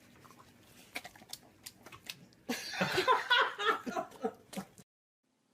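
A person laughing in short choppy bursts for about two seconds from about halfway in, after a few faint clicks and taps. It cuts off abruptly near the end.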